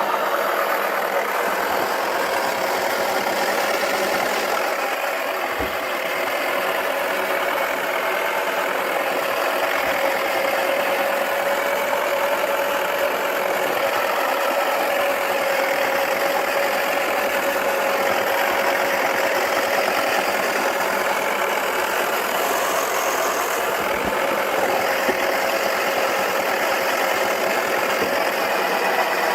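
Small electric motor of a Wacky Washer toy washing machine running steadily as it turns its drum, a continuous whirring with a steady, slightly wavering whine.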